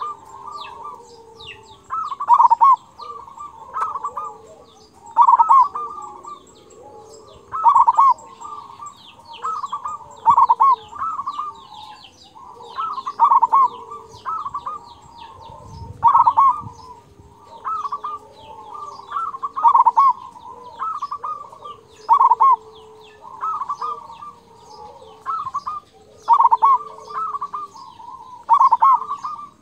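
A zebra dove (perkutut) cock sings its cooing song over and over, one loud phrase every two to three seconds, each with the big, full 'kung' note that keepers prize. Fainter high chirps of small birds run behind it.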